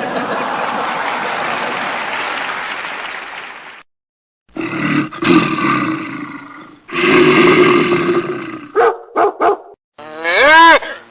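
A run of separate short meme sound effects: about four seconds of even noise, then two stretches of animal-like growling, three quick blips, and near the end a wobbling, pitched sound.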